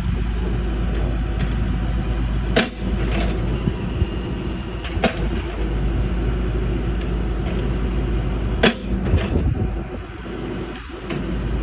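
Hydraulic excavator's diesel engine running steadily, with three sharp knocks spread through it.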